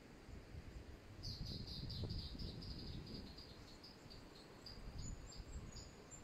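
A run of short, high chirps from a small animal, quick at first and slowing and fading over about four seconds, then a few higher notes near the end, over a low rumble.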